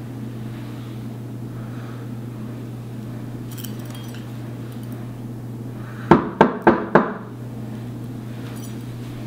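Four quick, sharp knocks on a door, about three a second, over a steady low hum.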